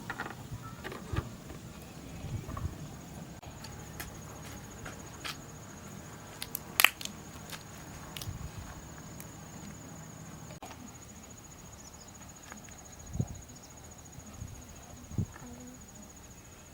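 A steady high insect trill, finely pulsing, with scattered clicks and knocks; the sharpest click comes about seven seconds in.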